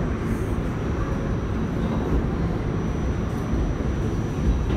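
Steady low rumble of an R46 subway train running, heard from inside the car.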